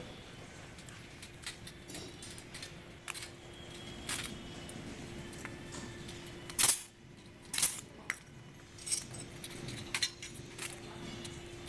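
Stainless steel ventilator rings and strips clinking and rattling as they are handled, in scattered sharp metallic clicks, the two loudest a little past the middle, over a faint steady hum.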